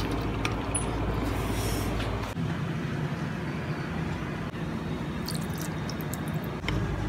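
A steady low mechanical hum with several held tones, changing slightly about two seconds in, and a few light clicks near the end.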